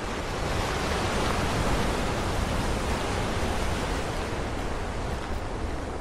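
Ocean surf breaking and washing over a rocky shore: a steady hiss of water that swells about a second in and slowly eases.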